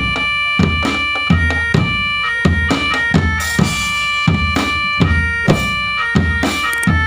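A marching drum band playing: a bass drum beats steadily, about three hits every two seconds, with snare and percussion under a melody of held, reedy notes.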